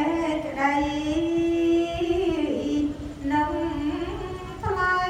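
Smot, Khmer Buddhist chanted verse, sung by a woman in long held notes that slide from pitch to pitch.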